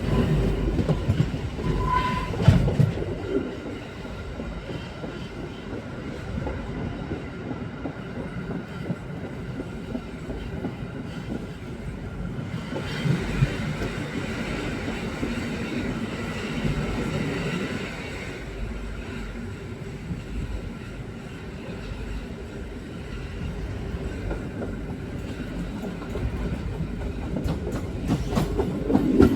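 EN57 electric multiple unit pulling away and running along the track: a continuous rumble of wheels and running gear on the rails, with a brief high tone about two seconds in and a rise in higher-pitched running noise about halfway through.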